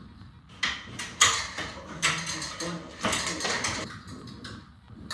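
Romex electrical cable being pulled through by hand, its plastic sheathing scraping and rustling in about four pulls, each lasting half a second to a second.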